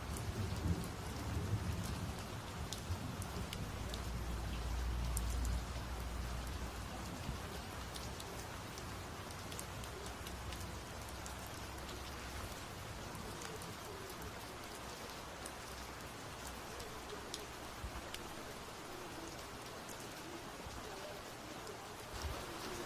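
Heavy rain falling steadily, with scattered drops pattering close by. A low rumble of thunder runs through the first few seconds, swells, then dies away, leaving only the rain.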